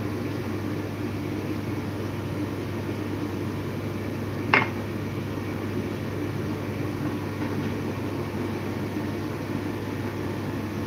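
Steady low mechanical hum of a running kitchen appliance, with one sharp click about four and a half seconds in.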